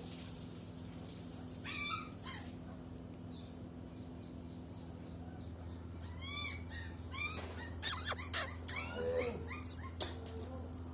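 A dog whining in short, high whimpers that bend up and down in pitch, with a run of sharp, short, loud noises from about eight seconds in. A steady low hum lies underneath.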